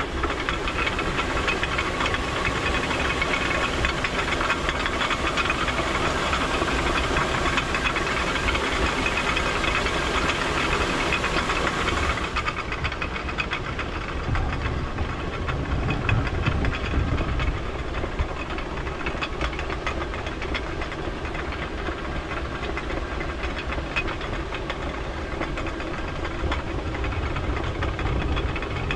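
Traditional Nepali water mill (ghatta) running: a steady, rapid clattering and knocking from the turning millstone and its grain-feeding gear over a rushing hiss of water. About twelve seconds in the hiss drops away and the clatter turns duller.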